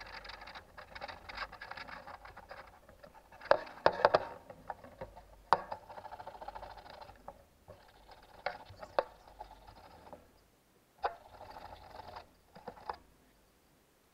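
Hand scuffing of a turbocharger's aluminium compressor housing with an abrasive, a dry scraping rub in stretches of strokes that stop and start, roughening the metal so paint will grip. A few sharp knocks of metal parts on the bench stand out.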